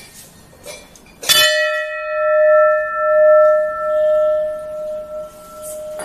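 A brass temple bell (ghanta) struck once by its clapper about a second in, then ringing on with a clear, long-sustained tone and a slowly pulsing hum.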